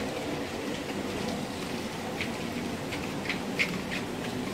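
Steady background noise with a few short, faint ticks in its second half.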